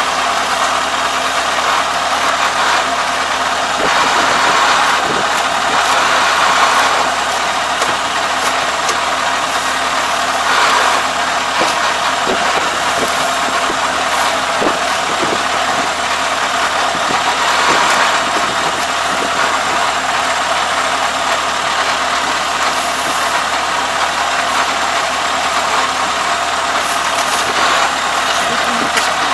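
ARN460 rice combine harvester's engine running steadily at idle, with scattered light knocks and rustles as a straw jam is pulled by hand from the rear straw outlet.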